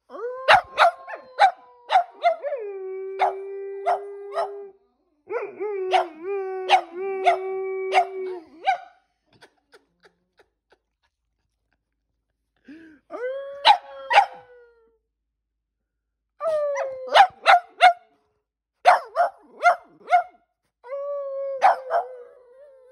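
A Boston Terrier and a German Shepherd–Labrador mix howling, with short barks and yips breaking in over the held howls. The howling comes in several phrases, with a pause of a few seconds about a third of the way through.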